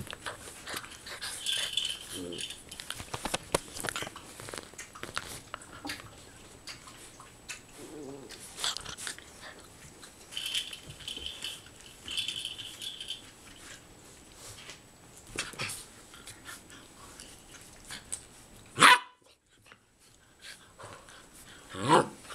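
Golden retriever puppies playing and scuffling, with scattered high-pitched puppy squeaks and whines. Near the end comes a single loud, sharp yip.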